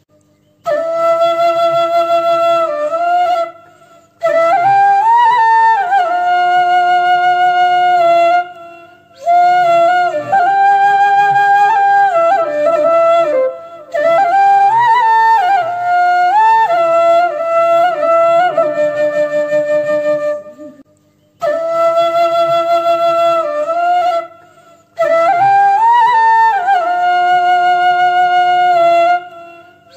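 Background music: a solo flute-like melody played in phrases a few seconds long, separated by short breaks, with notes sliding between pitches.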